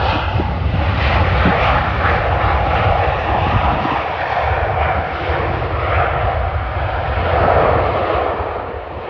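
Jet aircraft engine noise, a broad steady rush that swells a little near the end and then eases off, with wind buffeting the microphone.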